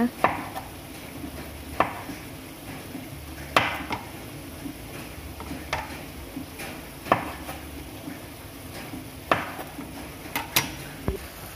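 Kitchen knife slicing tempe on a plastic cutting board, the blade knocking sharply on the board every one to two seconds as each thin slice is cut.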